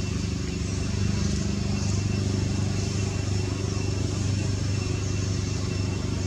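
A steady low drone like an engine running, holding one pitch, with faint steady high-pitched tones above it.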